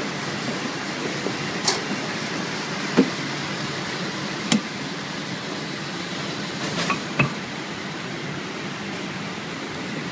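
Automatic L-type sealing and heat-shrink packaging line running: a steady rushing noise with about five sharp clicks and knocks spread through it.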